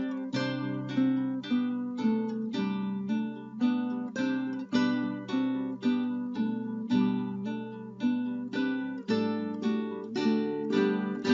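Acoustic guitar strummed in a steady rhythm, about two strums a second, with the chords changing every few seconds.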